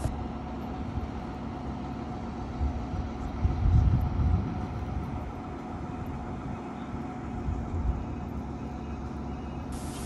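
Engine of a truck-mounted concrete pump running steadily with a low hum, swelling louder for about a second a third of the way in.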